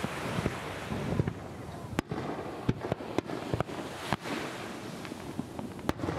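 Aerial fireworks shells bursting in a series of sharp bangs. The loudest comes about two seconds in, several more follow in quick succession a second or two later, and one more comes near the end, over a continuous low rumble of the display.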